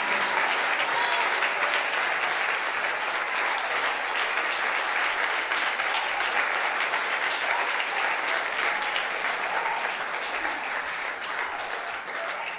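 Congregation applauding, a long steady round of clapping that starts to die away near the end.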